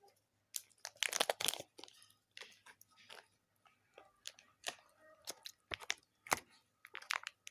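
Chocolate candy being chewed close to the microphone: irregular crisp crunches and crackles, thickest about a second in.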